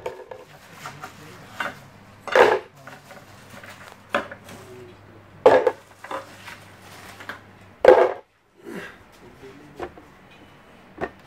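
Ice cubes dropped by the handful into a Tritan plastic blender jug. Three loud clattering drops come about two and a half seconds apart, with lighter knocks in between.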